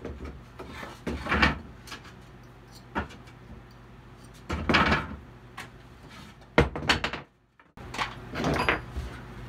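Nails being pried out of old pallet boards with a claw hammer and pliers: a few creaking, scraping pulls of metal out of wood, with sharp metal-on-wood knocks in between. The sound cuts out for about half a second about three-quarters of the way through.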